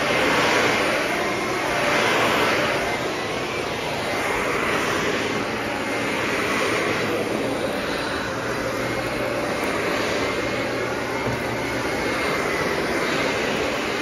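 Shark Navigator Anti-Allergen upright vacuum cleaner running on carpet with a steady motor whine. The suction noise rises and falls about every two seconds as it is pushed back and forth.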